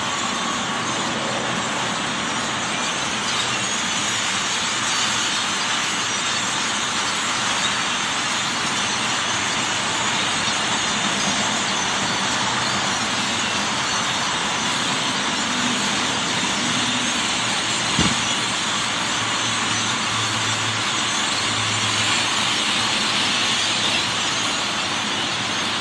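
A huge flock of birds calling all at once, making a dense, steady din without a break. There is a single sharp knock about eighteen seconds in.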